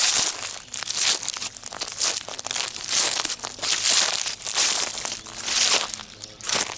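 Footsteps crunching through dry fallen autumn leaves at a steady walking pace, one crackling crunch after another.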